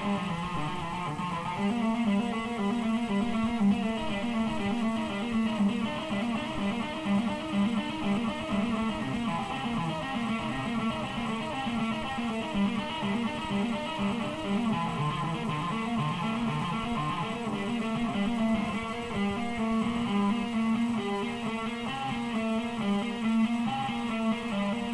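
Stratocaster-style electric guitar played in a continuous stream of quick picked single notes and short runs.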